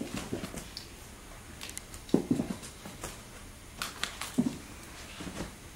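Savannah cat making short, low vocal sounds three times while tussling with a feather toy, with scattered sharp taps and knocks from its paws and the toy.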